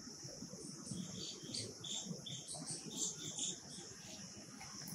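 Faint outdoor ambience: a steady, high insect drone, with short bird chirps scattered through it.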